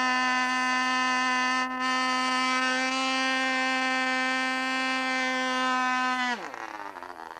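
Small model-airplane glow engine running revved full out, a steady high buzz with many overtones. About six seconds in its pitch drops sharply as it winds down: the hand launch has failed, the plane has gone in, and the propeller has broken.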